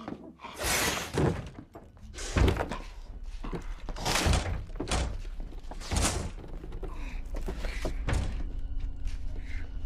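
Film sound effects of a giant snake's attack: an irregular series of about seven heavy thuds and slams against wooden-framed leaded glass windows, each with a booming, echoing tail. A low rumble carries on underneath in the last few seconds.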